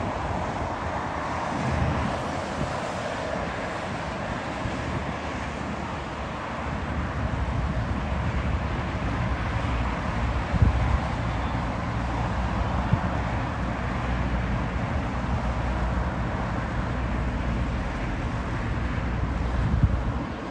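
Distant jet engines of a taxiing Boeing 747 freighter running at idle, a steady rumble and hiss, with wind on the microphone. A low steady hum sets in about seven seconds in, and there are two brief knocks around the middle.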